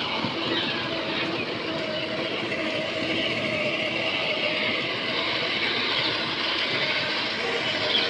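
Battery-powered ride-on toy jeep rolling along paving stones: its hard plastic wheels make a steady rumble and rattle, over a faint hum from its small electric drive motors.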